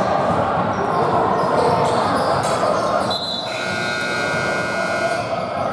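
Basketball game noise in a large indoor gym: the ball, players and voices mixed in the hall's echo. About three seconds in, a steady high tone starts and holds for about two seconds.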